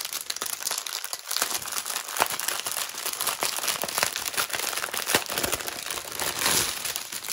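Clear plastic bag holding packets of diamond-painting drills crinkling as it is picked up and handled, a continuous stream of small crackles.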